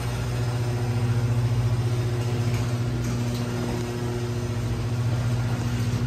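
Electric garage door opener running as the overhead door rises: a steady motor hum.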